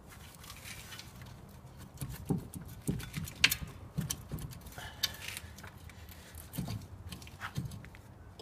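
Light metal clicks, taps and scraping of hand work on a car's front suspension as a greased bolt is fitted into the strut-to-steering-knuckle joint. The knocks come irregularly, starting about two seconds in.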